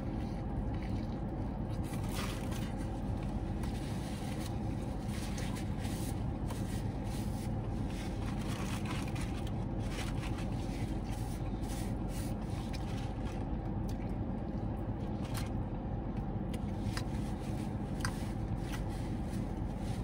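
Steady low hum of a car idling, heard inside the cabin, with a person chewing and a paper sandwich wrapper rustling and crinkling at intervals.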